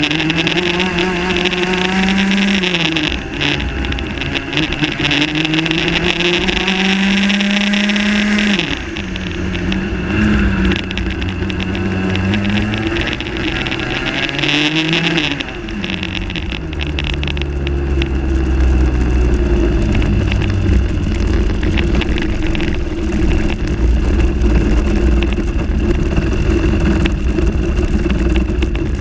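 Rotax Max 125cc single-cylinder two-stroke kart engine at racing speed, its pitch climbing and then dropping sharply as the throttle is lifted, several times. For roughly the last dozen seconds it runs lower and steadier with a heavy low rumble, the kart slowing off the track toward the pits.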